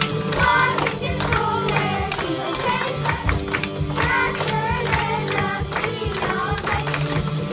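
A class of children singing a song together over backing music with a steady beat.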